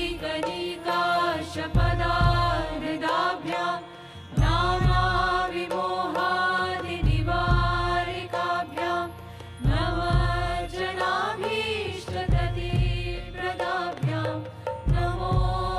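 Devotional mantra chanting: a voice sings long melodic phrases over music, with a deep drum stroke every few seconds.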